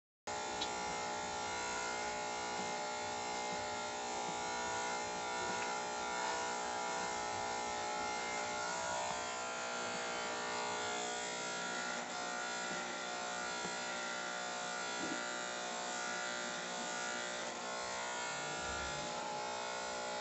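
Jinghao corded electric hair clipper buzzing steadily as it is worked through hair, cutting in abruptly right at the start.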